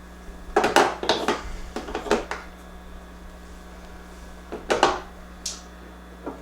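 Skincare bottles and jars clattering and knocking as they are handled and set into a small fridge: a quick run of knocks in the first couple of seconds, then another few near the end.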